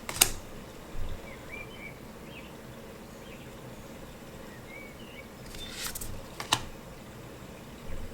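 Tarot cards handled during a flip-through: a sharp card snap just after the start, then a sliding swish and another snap about six seconds later. Faint bird chirps sound in the background.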